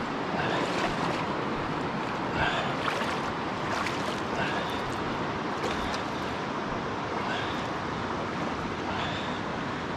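Steady rush of river water with a few small splashes, and short high chirps repeating every second or so.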